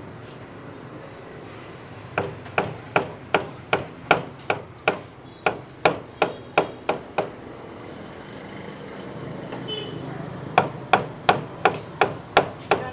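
A cleaver chopping meat on a thick round wooden chopping board, in sharp, even chops about three a second. A first run of chops lasts about five seconds, then after a pause of a few seconds a second run starts near the end.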